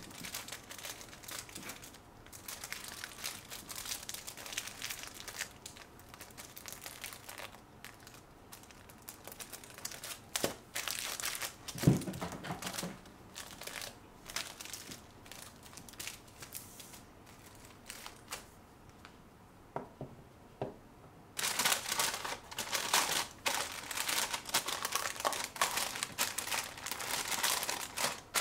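Thin white paper rustling and crinkling as hands wrap and fold it, with a single knock about twelve seconds in. The crinkling grows louder and denser over the last seven seconds as a thin paper sleeve is handled.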